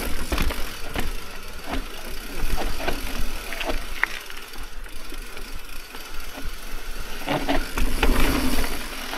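Mountain bike riding down steep rock slabs: tyres rolling on rock, with knocks and rattles from the chain and frame over the bumps, densest near the end, over a steady low rumble.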